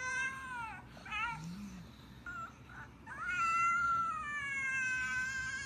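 Pug whining in high-pitched cries: a falling whine at the start, a short wavering one about a second in, then a long drawn-out whine from about three seconds in.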